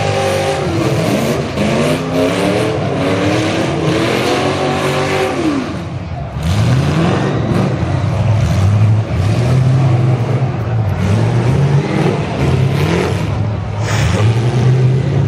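Demolition-derby car engines revving, several at once, their pitch climbing and falling again and again. The sound eases briefly about six seconds in, then picks up.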